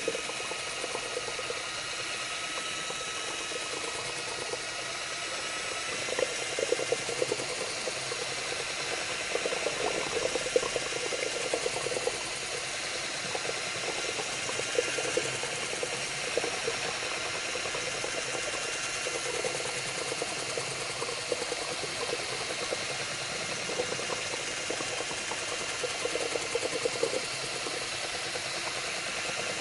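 Handheld drill running a mixing paddle through a bucket of water-based epoxy primer at moderate speed: a steady motor whine that steps up in pitch about six seconds in, over the churning of the liquid.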